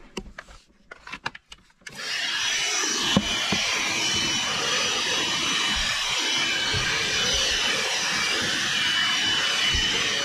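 Cordless handheld vacuum cleaner switched on about two seconds in after a few light handling clicks, then running steadily with a thin high motor whine over the rush of suction as it vacuums carpet.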